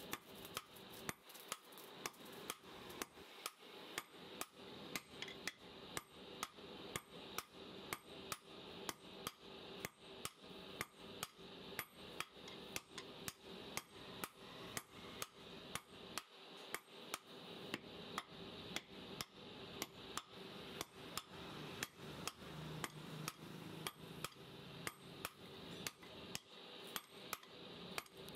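Sledgehammer and hand hammer striking red-hot steel on an anvil in a steady forging rhythm, about two blows a second.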